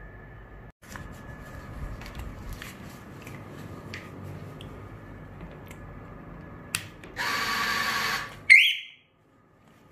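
Faint steady electrical hum with a few light clicks; near the end a small motor whirrs for about a second, then a short high electronic beep, and the sound cuts off abruptly.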